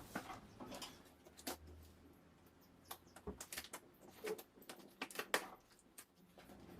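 Packaging being handled during an unboxing: irregular crinkles, taps and short rustles of plastic and cardboard, a few sharper knocks about five seconds in.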